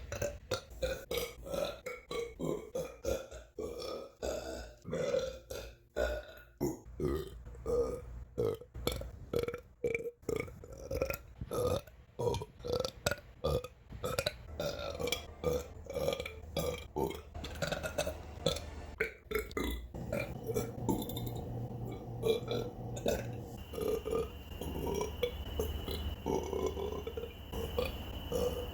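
A woman belching over and over: a quick run of many short burps, then longer burps running into one another from about twenty seconds in.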